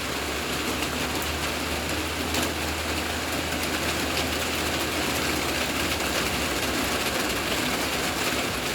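Steady rushing noise of rain and runoff water, with a low steady hum underneath.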